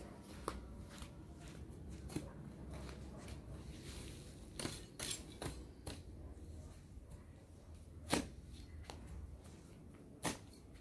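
Long-handled lawn edger being pushed and stepped into turf, giving scattered short crunches and scrapes as the blade cuts through grass and soil, the loudest about eight seconds in.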